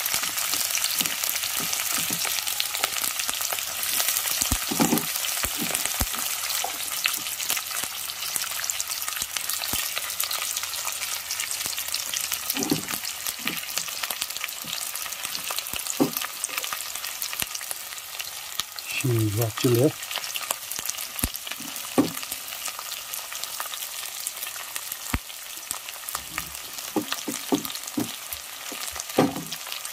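Sliced onions sizzling steadily as they fry in oil in a metal pot, with a spoon clicking and scraping against the pot now and then as they are stirred.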